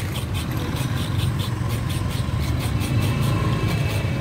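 Steady rumble of passing motorbike traffic, with a small metal hand grater scraping fresh coconut flesh out of a half shell into shreds in quick repeated strokes, about four a second.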